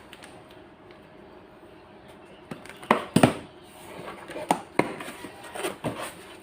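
Handling noise: a faint steady hum, then from about two and a half seconds in a series of irregular knocks and clicks with rustling, the loudest two close together about three seconds in.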